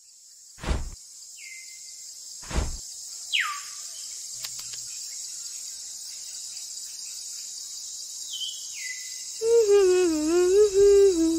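Steady high chirring of crickets or other insects, with a few short downward-sliding chirps and two dull thumps in the first three seconds. Near the end a louder wavering pitched sound comes in.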